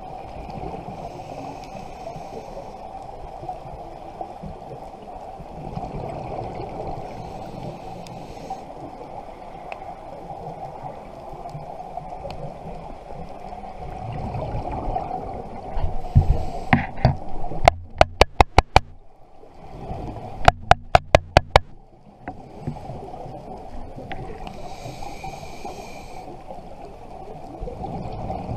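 Underwater ambience heard through a dive camera's housing: a steady rumble of water and bubbles, broken now and then by the hiss of a scuba regulator as the diver breathes in. About two-thirds of the way through come two quick runs of about six sharp raps each.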